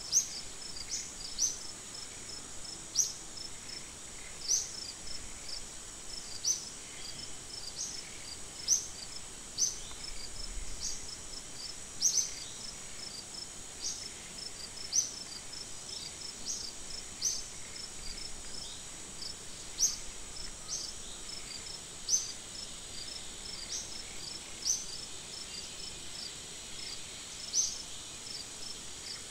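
Insect chorus: a steady high buzzing drone with a faint rapid ticking trill beneath it, and a short sharp high chirp repeating every second or two.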